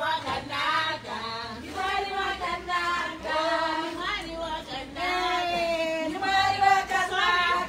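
A group of women singing together, with some long held notes.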